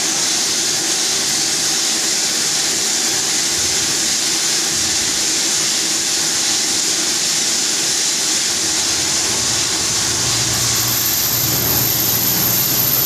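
Vertical machining centre drilling a metal casting under flood coolant: a steady loud hiss of coolant spray over the machine's running noise, which the operator puts down to the cutting insert rather than to the machine. About eleven seconds in, a thin high whine sets in and a low hum comes up beneath it.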